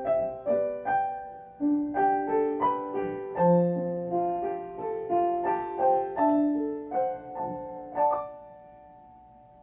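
Outro music: a piano melody of struck notes, a few a second, ending on a last note near the end that rings and fades away.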